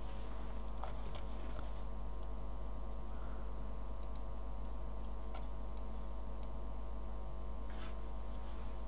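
Steady electrical hum, with a few faint, sharp computer mouse clicks scattered through.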